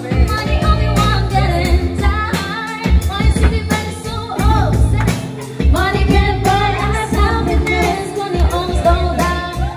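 Women singing a pop song into microphones, amplified through a sound system, over a backing track with a steady drum beat.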